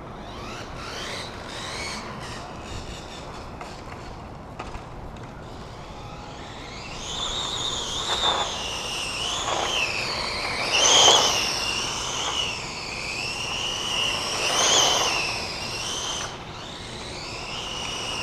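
A 7700kv brushless electric motor in a Tamiya DF03RA RC drift car whines as it is driven. The high whine starts about seven seconds in and rises and falls with the throttle. It surges twice and cuts off near the end. There is faint ticking in the first few seconds.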